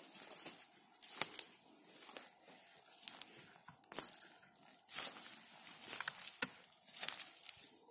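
Footsteps crunching on dry pine needles and twigs, a sharp crunch roughly once a second with rustling between.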